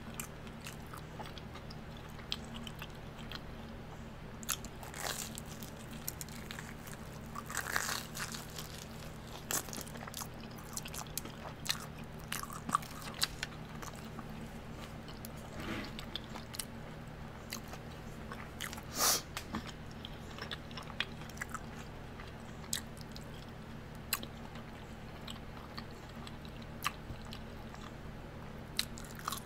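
A person chewing and biting fried food, hot wings and a Korean corn dog, with irregular crisp crunches, the loudest about 8 and 19 seconds in, over a faint steady low hum.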